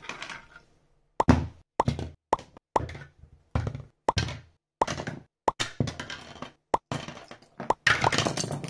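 Black 3D-printed plastic robot parts and gears set down one after another on a table: more than a dozen sharp plastic clacks and thunks, a few tenths of a second apart, starting about a second in.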